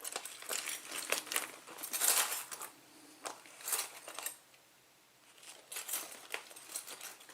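Small metal lock picks clinking and rattling against one another as they are handled and sorted, a run of light metallic clicks with a short lull just past the middle.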